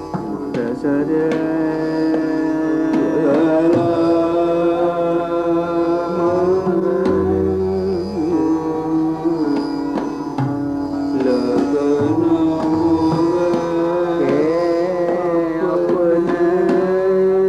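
Indian classical music: a melody that bends and glides between notes over a steady drone, with plucked and struck notes throughout.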